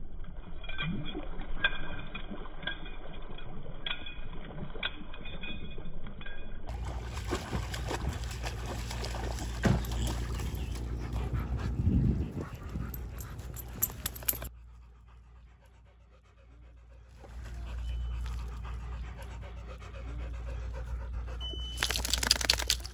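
Dogs panting, mixed with water splashing as they wade in the lake.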